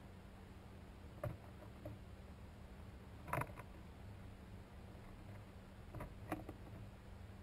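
A few faint, scattered clicks and knocks over a low steady hum, the loudest and longest about three and a half seconds in, and two close together near the end.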